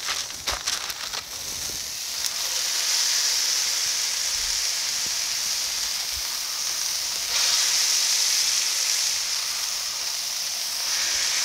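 Ground-beef smash-burger patties sizzling on a hot steel griddle as they are pressed flat under parchment paper with a foil-wrapped brick. A few clicks in the first second, then a steady sizzle that grows louder about seven seconds in and again near the end as more meat is pressed onto the steel.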